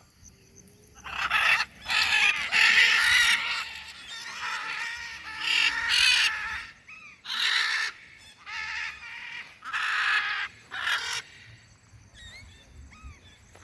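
A pet bird giving a series of harsh, raspy calls, about eight in all, each lasting under a second.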